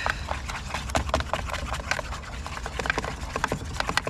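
Small whisk clicking and scraping against a metal camping pan in quick, irregular ticks, whisking a thick béchamel sauce.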